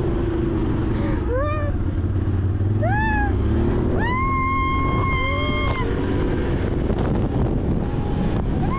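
A motor vehicle running with a steady low rumble, with high-pitched shrieks over it: two short rising cries about one and three seconds in, then one long held shriek from about four seconds to nearly six.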